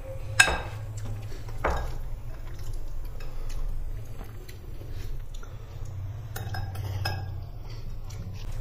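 A steel serving spoon clinks against a glass serving bowl and steel plates as curry is served out, with two sharper clinks in the first two seconds and lighter scattered clicks after them. A low steady hum runs underneath.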